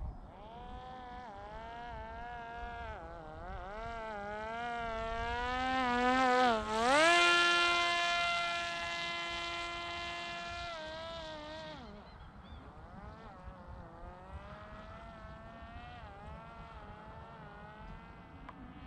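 Parrot Disco fixed-wing drone's single rear propeller motor buzzing in flight, its pitch wavering as the throttle changes. About six seconds in it dips, then climbs to a higher steady pitch and is loudest for about four seconds, before dropping back to a fainter wavering buzz.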